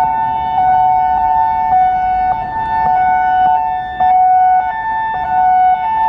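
Federal Signal EOWS 612 electronic warning siren sounding a two-tone hi-lo signal, switching back and forth between a higher and a lower tone about every half second. The loudness swells and fades as the rotating horn array turns.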